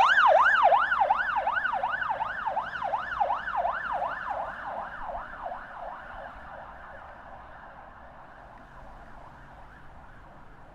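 Police car siren on a fast yelp, its pitch sweeping up and down about three times a second, fading steadily until it is faint near the end.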